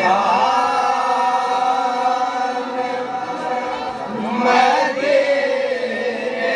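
A group of male voices reciting a naat together, unaccompanied, in long held notes. A new phrase begins about four seconds in with a rising swell.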